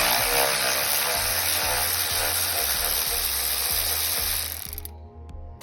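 Ratchet wrench with an 8mm socket turning a battery bolt on a Ford F250: a fast, continuous ratcheting that stops about four and a half seconds in.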